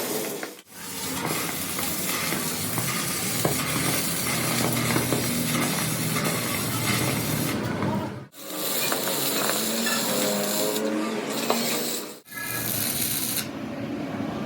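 Metalworking noise on a steel truck axle housing: rubbing and scraping of tools on metal with scattered clicks and a sizzling hiss, cut off abruptly three times.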